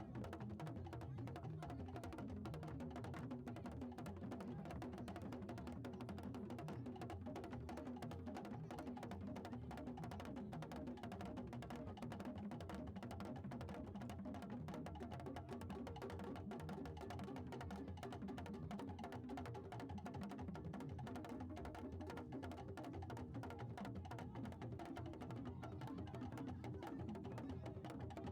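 Music with drums and percussion playing steadily.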